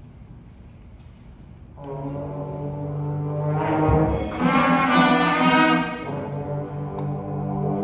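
School concert band: low brass and winds come in about two seconds in with long held chords that swell louder, with a low thump near the middle.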